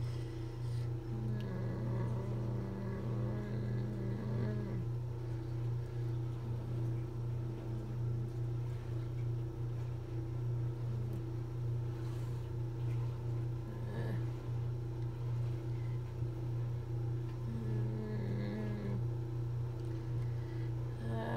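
A steady low hum throughout, with a few held, even-pitched hums from a person's voice, each lasting a second or more, and a few faint taps that fit one-finger typing on a laptop keyboard.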